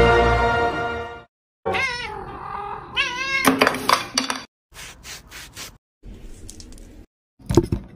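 Music fading out about a second in, then a cat meowing and yowling with a wavering pitch for a couple of seconds, as if complaining. Light clicks and taps follow, with a sharper knock near the end.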